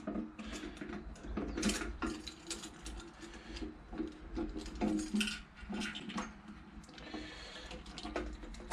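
Irregular metallic clicks and rattles from working the fuel filler cap and its fittings on a motorcycle fuel tank.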